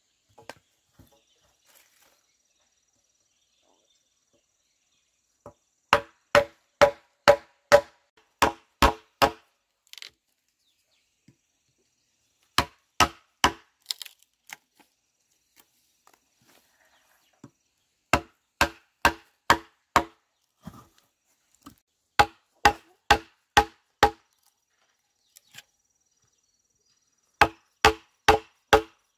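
A blade chopping into wood, in runs of four to eight sharp, ringing strokes at two to three a second, with pauses of a few seconds between runs.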